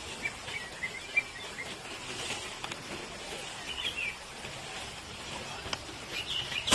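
Small birds chirping faintly, a run of short high chirps in the first second or so and another near the middle, over a steady outdoor hiss.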